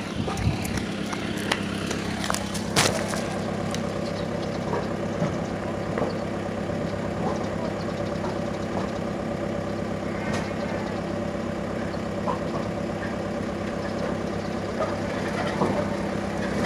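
Truck engine idling steadily, with a few sharp knocks over it, the loudest about three seconds in.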